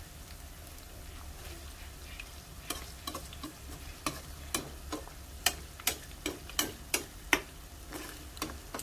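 Diced tofu frying in oil in a pan with a faint steady sizzle. From about three seconds in, a spatula stirring it knocks and clacks against the pan about a dozen times, irregularly.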